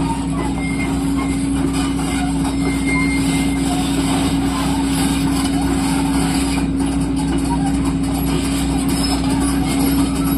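Heavy diesel machinery running steadily, a constant low drone with no clear change in load.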